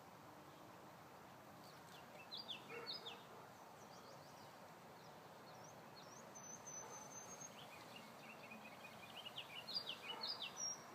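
A songbird singing in separate phrases: a quick run of falling chirps about two seconds in, a thin high whistle held for about a second around the middle, then a longer string of chirps near the end. Underneath is a faint, steady outdoor background.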